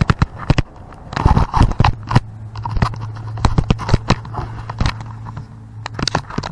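Irregular metal clicks and knocks of a combination wrench being fitted onto a front shock absorber's upper mounting nut, mixed with handling bumps. A low steady hum comes in about a second and a half in.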